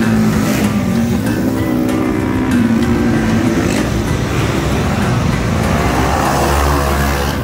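Two-stroke Polini minibike engines running on the track, their pitch rising and falling as the riders rev and back off.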